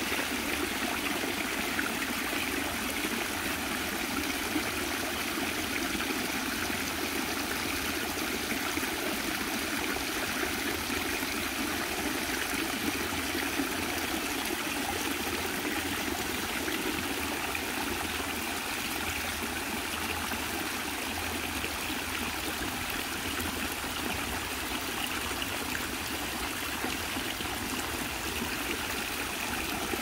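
Several thin streams of water falling from mossy rocks into a shallow pool, a steady trickling and splashing.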